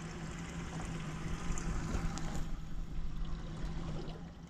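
Water lapping and sloshing against a boat's hull, rising and falling, over a steady low hum.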